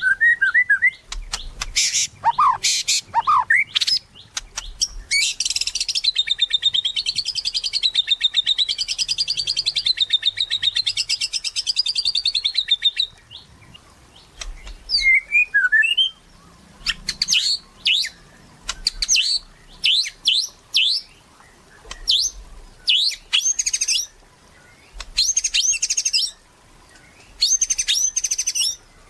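White-rumped shama (murai batu) in full song: varied, fast, high phrases, with a long rapid warbling run of about eight seconds starting about five seconds in, followed by a series of short separate phrases.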